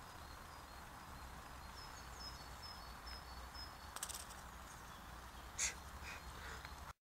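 Quiet woodland ambience with a low rumble, in which a small bird repeats a short high note several times, followed by a few brief crackles, the loudest about five and a half seconds in. The sound cuts off just before the end.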